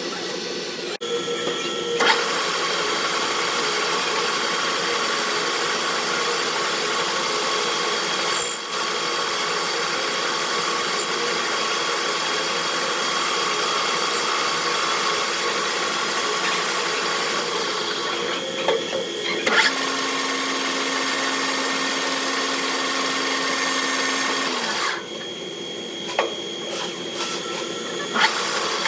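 Metalworking machine tool running steadily with a held whine. It gets louder about two seconds in and drops back near the end.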